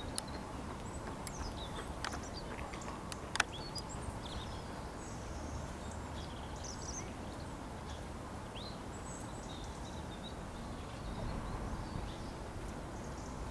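Small birds chirping and twittering, many short calls, over a steady low rumble, with a sharp click about three and a half seconds in.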